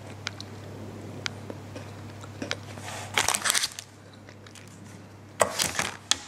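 Clear plastic wrapper around a chocolate bar crinkling as it is handled, in two loud bursts about three seconds in and again near the end. Between them, faint small crunching clicks of a square of chocolate with cookie pieces being chewed.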